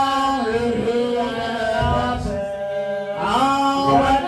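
A man singing a slow gospel worship song, holding long notes and sliding up into a new note near the end.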